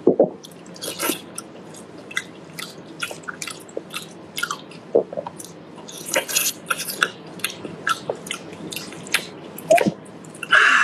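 Close-up chewing of braised pig's ear and skin: wet, sticky mouth clicks and smacks, several a second. Near the end comes a louder burst as a blade cuts into the braised pig's head.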